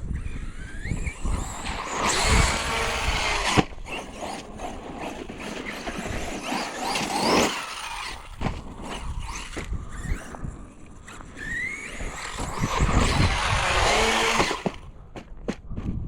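An Arrma Fireteam RC car's electric motor whines up and down in pitch as it is throttled on and off. Tyre and ground noise rushes under it, with a few knocks. Two loud bursts of full throttle come about two seconds in and again near the end.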